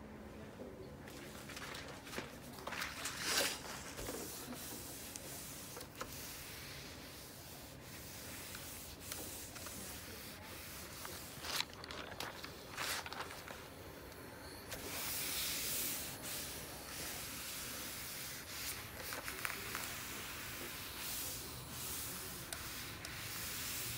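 Rustling of the paper-backed HeatnBond Lite fusible web as it is handled and laid on fabric. About fifteen seconds in, a steady rubbing hiss begins as a clothes iron slides over the paper backing to fuse it.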